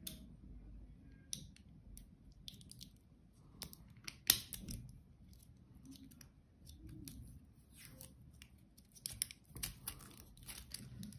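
Faint handling noise as a small lithium polymer pouch battery is picked at with a thin metal tool: scattered light clicks and scratches of plastic and tape, with one sharper click about four seconds in and a quick run of clicks near the end.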